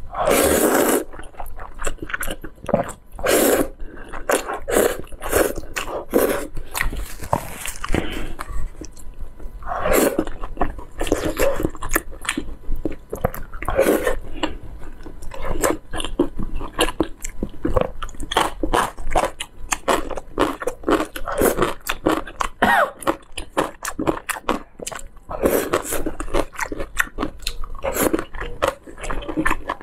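Close-miked eating of saucy noodles with chopsticks: strands slurped into the mouth and chewed, making a steady run of short mouth noises with louder slurps now and then.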